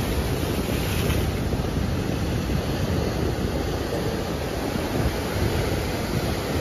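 Sea surf breaking and washing against a boulder breakwater: a steady rushing wash, with wind buffeting the microphone.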